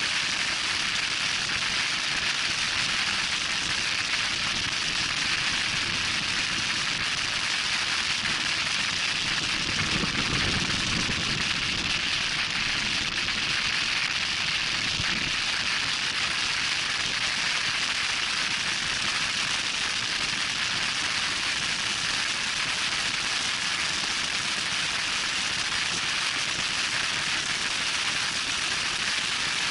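Loud, steady wind noise rushing over the microphone at high speed, a hiss that never lets up, with a low rumble swelling briefly about a third of the way in.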